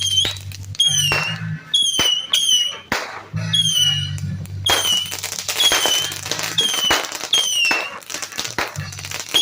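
Fireworks going off in a run of sharp cracks over music with a deep bass line. Short falling whistle tones repeat about every half second throughout.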